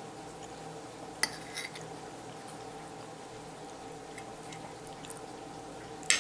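A metal spoon clinking sharply against a dish twice, about a second in and again near the end, over a steady low hum.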